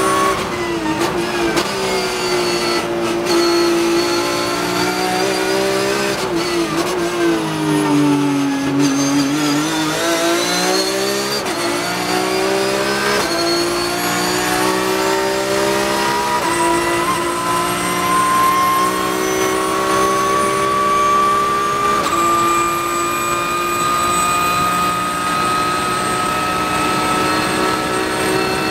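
Porsche 991.2 GT3 Cup race car's flat-six engine at high revs on full throttle, heard from inside the cockpit. The revs dip about eight seconds in as the car slows for a corner, then climb again with quick upshifts through the gears.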